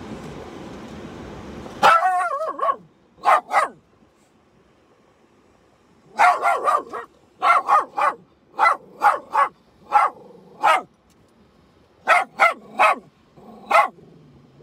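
Small terrier-type dog barking repeatedly inside a parked car's cabin, about fifteen sharp barks in bursts, after being left alone with the word "stay".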